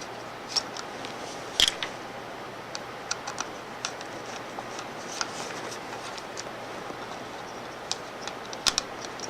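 Scattered small clicks and ticks of a Phillips screwdriver backing the two screws out of a switch pendant, with a sharper click about one and a half seconds in and a few more close together near the end.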